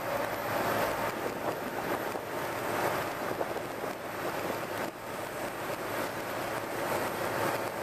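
Steady road and wind noise from a car driving along a road.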